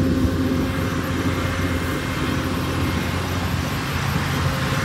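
Stretch SUV limousine's engine idling steadily: a low rumble with a constant hum above it.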